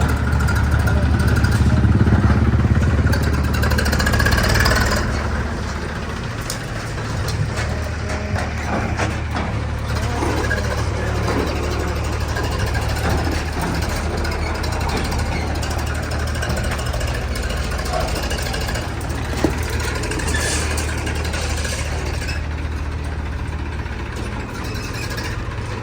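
Diesel engine of a JCB backhoe loader running, louder and working harder for the first few seconds, then settling to a steady run.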